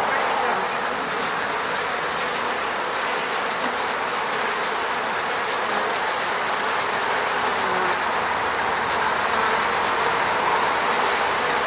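Many honeybees buzzing steadily around their hive, a dense, even hum with no breaks.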